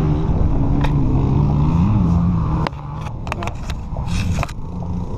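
Small dirt bike engine idling steadily, with a brief rise in pitch about two seconds in, then heard more faintly. Several sharp clicks and a short scrape follow near the end.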